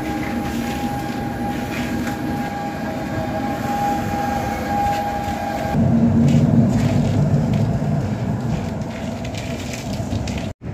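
A train running past: a steady high tone over rail noise for about the first six seconds, then, after a sudden change, a louder low rumble.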